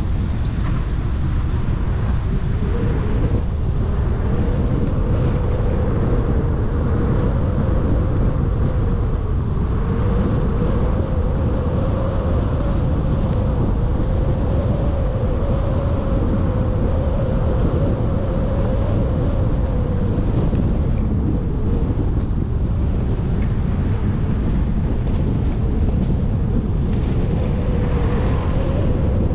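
A car being driven: steady road and wind noise on the microphone, with an engine drone that drifts slightly up and down in pitch.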